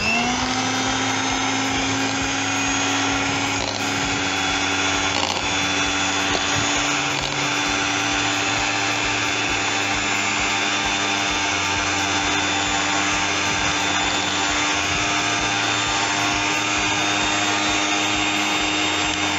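Electric hand mixer running, its beaters whisking sugar and oil in a plastic bowl. The motor starts with a brief rise in pitch, holds a steady whine, and winds down with a falling pitch at the end.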